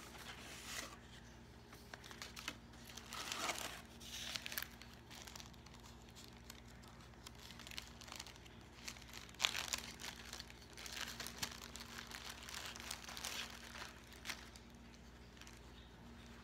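Plastic zip-lock bag and tissue-paper packing crinkling and rustling as they are handled and unwrapped, in irregular bursts. One sharp snap about halfway through, where the bag's zip seal is pulled open.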